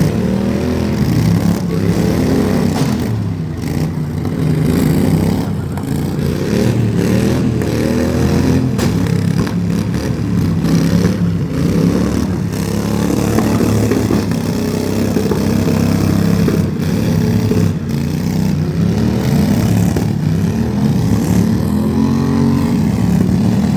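Loud motor vehicle engine revving up and easing off again and again, its pitch rising and falling every few seconds.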